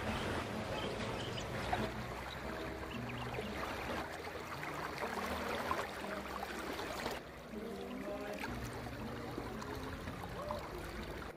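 Background music with a simple melody over the rush of flowing river water. The water noise thins sharply about seven seconds in.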